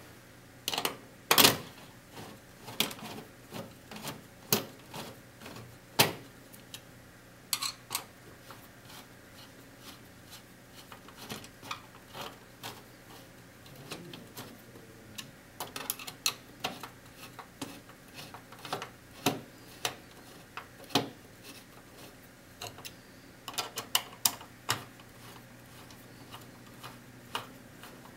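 Hand Phillips screwdriver tightening the hard drive's mounting screws in the bottom of a metal DVR case: irregular clicks and taps, some sharp and loud, with small knocks from the unit being handled.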